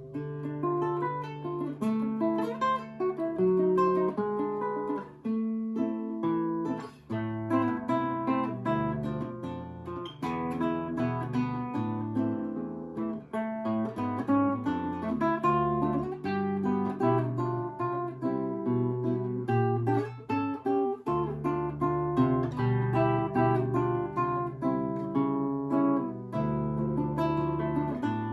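Seven-string Russian acoustic guitar played solo, fingerpicked melody over a plucked bass line with occasional strummed chords.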